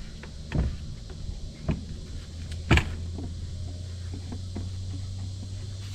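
A few sharp knocks on wooden deck boards as someone shifts and kneels down on them, the loudest about three seconds in. Right after it a steady low hum sets in and carries on.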